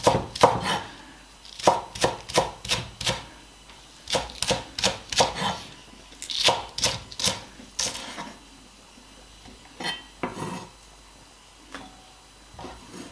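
Kitchen knife chopping spring onions, the blade striking the cutting board in quick runs of about five strokes with short pauses between. Near the end come only a few scattered cuts.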